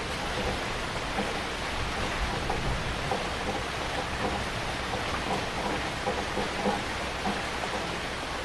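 Heavy rain falling steadily, a dense hiss of rain with many individual drops spattering on surfaces.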